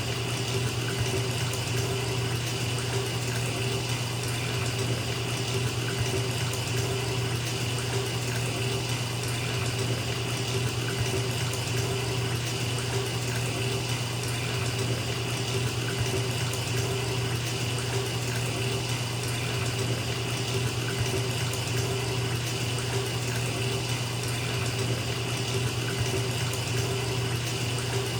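Bathtub tap running steadily into a filling tub, an even splashing rush of water with a low undertone.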